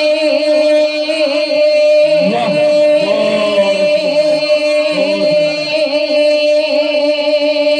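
Men singing a naat through a PA system, wordless and unaccompanied: one voice holds a long steady note, and a second, lower male voice sings along for a few seconds starting about two seconds in.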